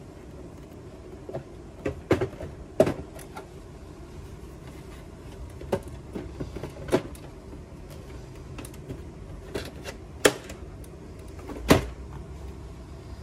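Scattered sharp plastic clicks and knocks as hands press on and shift the lid and casing of a Canon inkjet all-in-one printer, five of them louder than the rest, over a steady low background noise.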